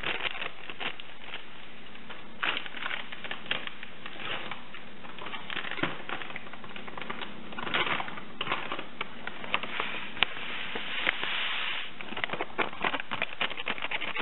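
Crushed malt grains poured from a bag into a stainless mesh hop strainer in a pot of water. It makes an irregular, dry pattering crackle of many small clicks, with thicker rushes of grain now and then.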